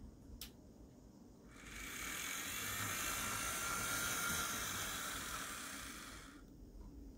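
Athearn GP40-2 HO-scale model locomotive with a Genesis drive running on track, its small motor and gears whirring. A single click comes shortly in, then the whir swells about a second and a half in and fades away near the end. The owner puts most of the noise down to the body shell vibrating.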